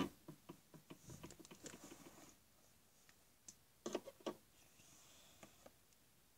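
Faint handling noise from hands with a paper booklet: a run of light ticks and taps, then a few sharper clicks about four seconds in.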